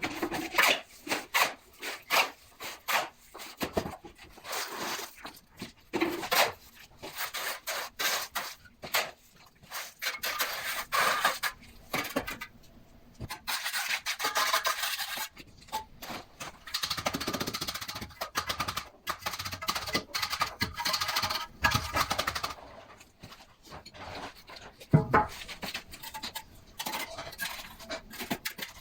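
Hand tools at construction work: irregular scraping and rubbing, broken up by many short knocks and taps, with one harder knock near the end.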